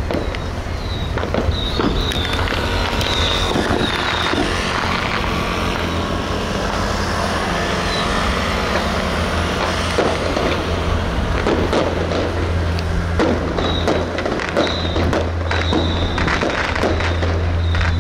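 Firecrackers popping in scattered, irregular cracks over a dense noisy din and a steady low hum.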